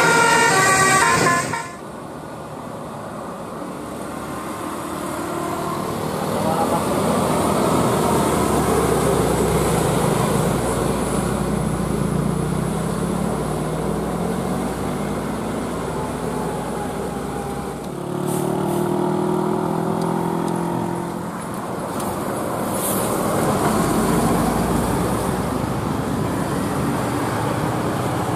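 A telolet multi-tone bus horn playing a stepping tune that cuts off about a second and a half in. Bus engine and traffic noise follow, building over the next few seconds, with more pitched engine or horn tones partway through.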